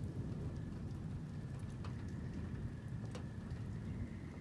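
Steady rain in a thunderstorm, a constant low-heavy wash with scattered drops ticking close by; two sharper drips land about two and three seconds in.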